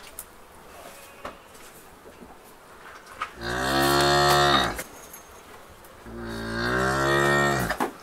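Cow mooing twice: two long calls about a second apart, each about one and a half seconds long and arching up and then down in pitch.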